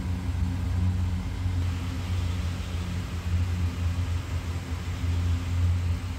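Steady low hum of a running motor or fan. A faint hiss joins it about two seconds in.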